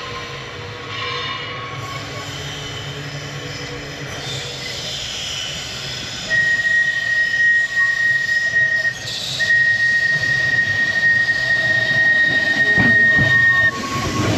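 Electric tram's steel wheels squealing on the rails: a steady high squeal that sets in about six seconds in, breaks briefly, then holds again until just before the end, over the tram's running rumble.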